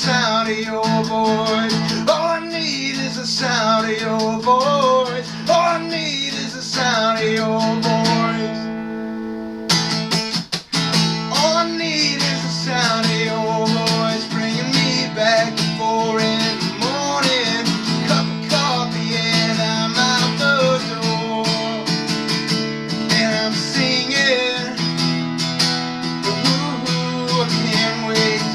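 Acoustic guitar playing an instrumental passage of a song, strummed chords with a moving melody line, with a brief break in the strumming about a third of the way through.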